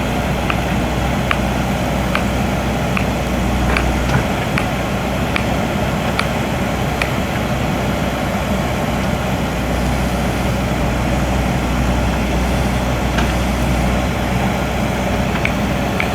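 Diesel engine of a JCB backhoe loader running steadily, with a scatter of short, sharp clicks over it in the first seven seconds or so and again near the end.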